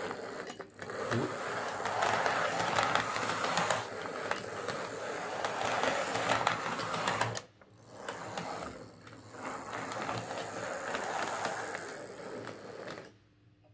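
A Hornby 00 gauge APT power car chassis with its ringfield motor running along a model railway track: the motor whirs and the wheels click and rattle over the rails. It drops out briefly about seven and a half seconds in, runs again, and stops near the end. The freshly serviced motor is running much better.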